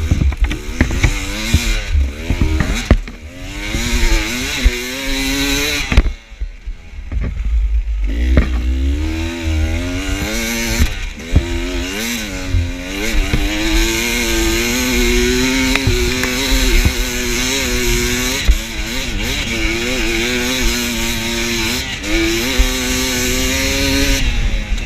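Enduro dirt bike engine revving up and down repeatedly as it is ridden over rough trail. The throttle is let off briefly about six seconds in, and the engine holds a steadier pitch through the later part. Scattered knocks from the bike hitting the ground come throughout.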